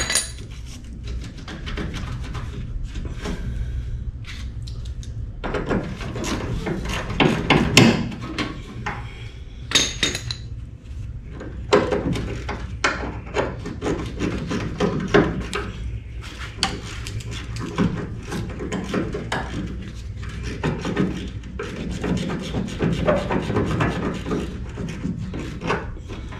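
Hand tools knocking, scraping and rubbing on metal fittings under the rear of a VW Bay Window bus as the engine is unbolted for removal. The knocks are irregular, with clusters around 8, 10 and 12 seconds in, and they come thicker and lighter near the end, over a steady low hum.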